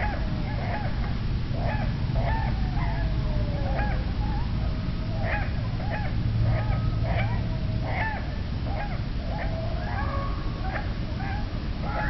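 Downy woodpecker nestlings begging from the nest cavity, played back at quarter speed so the calls come out low and drawn out: many short arched calls in quick succession, with one longer falling call about three seconds in, over a steady low rumble.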